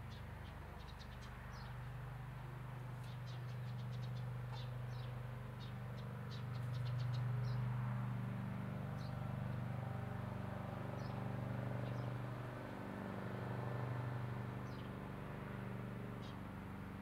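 A flying insect buzzing: a low, steady hum that swells and fades every couple of seconds. Faint, short, high-pitched chirps come and go over it, most of them in the first half.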